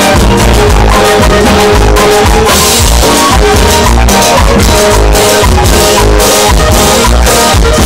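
Live band playing: a diatonic button accordion carries the melody over timbales, drums and bass guitar, loud and steady throughout.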